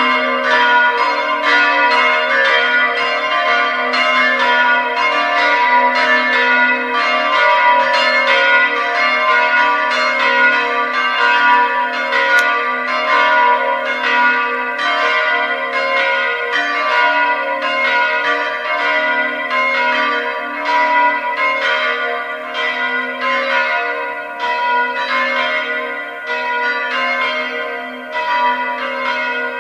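Three electrically swung church bells (D4 cast by Bizzozero 1764, C4 by Comerio 1858, B3 by De Antoni 1975) ringing together in a full peal, their strikes overlapping in an uneven rhythm with the tones ringing on between them. The full peal is the call to Sunday Mass.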